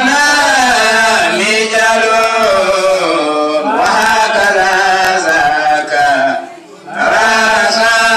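A man's voice chanting a religious recitation into a microphone, in long melodic held notes that bend up and down, with a short breath pause about six and a half seconds in.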